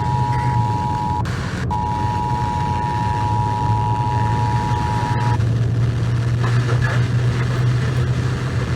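Emergency Alert System two-tone attention signal (853 and 960 Hz together) from a radio broadcast, sounding steadily with a brief dropout about a second in and cutting off about five seconds in, announcing the Required Monthly Test message. Under it runs the steady low drone of a running vehicle.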